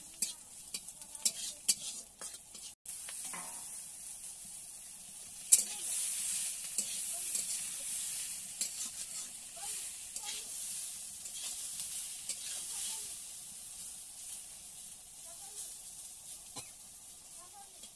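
Metal spatula scraping and clicking against an iron kadai as onions fry in a little oil. About five and a half seconds in there is a sharp clatter, and a louder sizzle follows as chopped green vegetables fry and are stirred, then it fades slowly.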